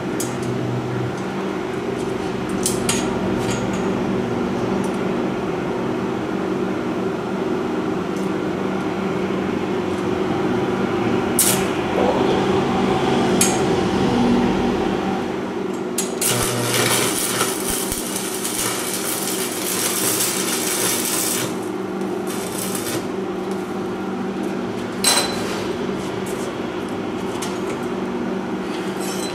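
Welding arc crackling in a dense, hissing burst for about five seconds past the middle, with a shorter burst just after, as a steel guard ring is welded onto a conduit-tube frame. A steady low hum runs underneath, with a few sharp metallic clicks and taps.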